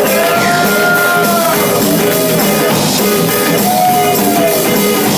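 Music: a rock-style song with a gliding melody line over steady band accompaniment.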